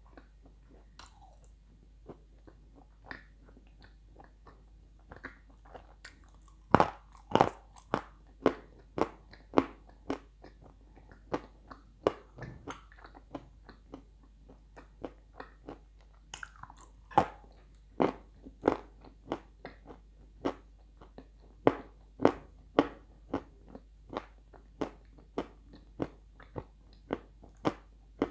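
Dry red clay being bitten and chewed by a person: sharp, brittle crunches, a few scattered ones at first, then about two a second from several seconds in.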